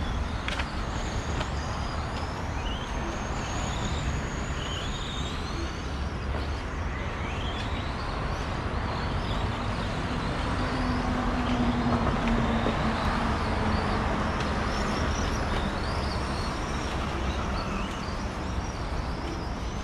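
Several 4WD electric RC racing cars running on a track, their motors whining up and down in pitch as they accelerate and brake, over a steady background noise.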